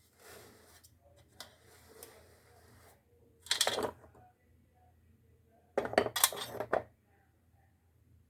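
Slate pencils being bitten and chewed: two short bursts of crisp crunching, about three and a half seconds in and again around six seconds in.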